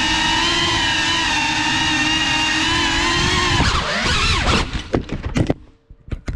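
GEPRC CineLog 35 cinewhoop drone's brushless motors and propellers whining at a steady high pitch, then swinging sharply up and down in pitch as the throttle changes. About four and a half seconds in it crashes with a quick run of clattering knocks, the motors cut off, and two sharp clicks follow near the end.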